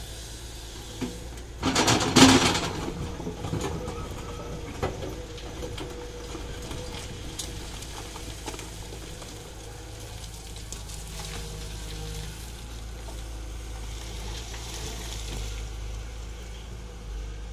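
Tata Hitachi hydraulic excavator's diesel engine running steadily, with a loud crash of rock and earth about two seconds in as the bucket works the rock pile, and a few lighter knocks after it.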